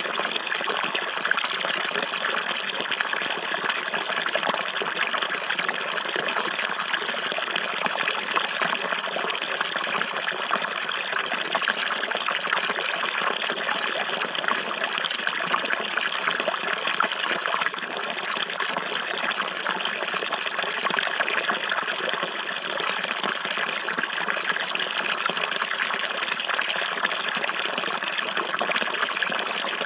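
Steady running water, a continuous trickling and splashing flow like a stream.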